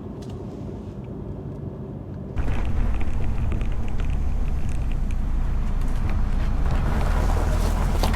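Car driving, engine and road noise: a quieter low rumble that jumps abruptly to a louder, fuller rumble a little over two seconds in and builds slightly toward the end.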